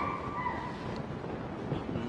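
Wind rumbling on the microphone, a steady noisy rumble, with a high tone fading out in the first half second.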